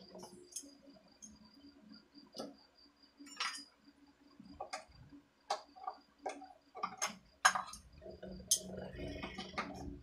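Irregular small metallic clicks and clinks of pliers and hand tools working a nut tight on a terminal of a homemade transformer welder, busiest and loudest in the second half.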